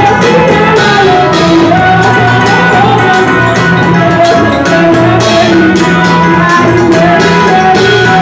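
Live amplified worship music: women singing a hymn into microphones over an electric bass and drums, loud and steady throughout.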